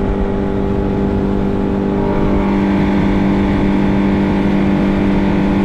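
An engine running at a steady speed, a constant hum whose pitch does not change.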